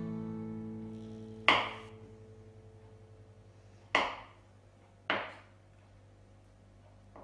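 Kitchen knife cutting through fresh white cheese and knocking on a bamboo cutting board: three sharp chops, the last two about a second apart.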